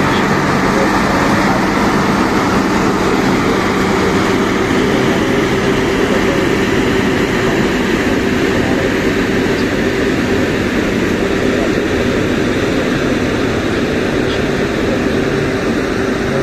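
Plasser RM900 high-output ballast cleaning machine running: a loud, steady drone of its diesel engines and machinery, with a constant low hum.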